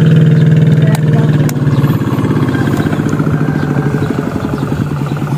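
A small engine running close by with a steady hum. After about a second and a half its firing beat comes through as a rapid pulse, and the sound slowly fades.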